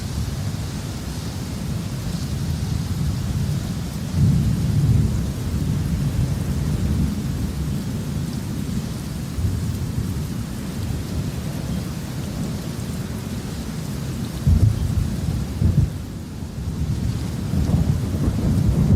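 Thunderstorm: steady rain hiss over continuous low rolling thunder. The rumble swells about four seconds in, gives two brief louder jolts near the end, then builds again.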